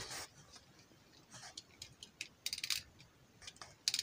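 Faint, scattered small plastic clicks and ticks of a Beyblade top being handled, with a quick run of clicks about two and a half seconds in and another short run near the end.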